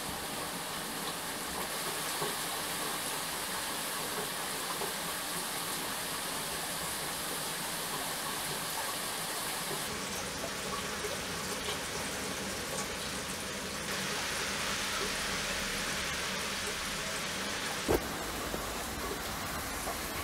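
Steady rain hiss during a thunderstorm, with a single sharp crack near the end.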